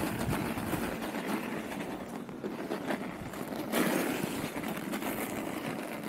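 Steady rushing noise of riding a fat-tire bicycle along a snowy road: wind on the microphone and the tyres on packed snow, swelling briefly about four seconds in.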